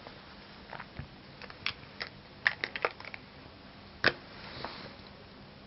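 Plastic marker pens clicking and tapping as they are handled and swapped: a scattered run of light clicks, with one louder click about four seconds in.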